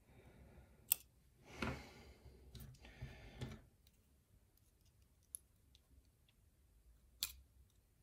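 A thin steel pick scraping and clicking inside a 5-pin lock cylinder while it is being gutted. There are two sharp metallic clicks, one about a second in and one near the end, and soft scraping and handling rustle in between.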